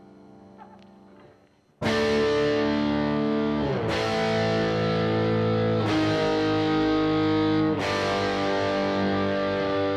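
Distorted electric guitar: a faint ringing fades to a brief silence, then about two seconds in the guitar comes in loud with held power chords, changing chord about every two seconds.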